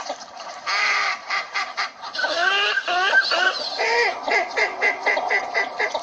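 Northern shoveler ducks calling: a rapid run of short repeated calls, about four a second, overlapping one another, with some gliding notes near the middle.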